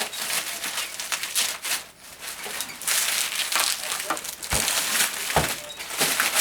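Packing material crinkling and rustling as it is handled during an unboxing, with two dull knocks about four and a half and five and a half seconds in.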